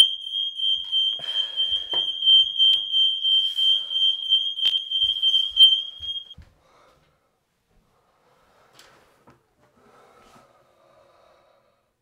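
Aico smoke alarms sounding their high-pitched, pulsing alarm tone, set off with the test button; the alarm cuts off about six seconds in.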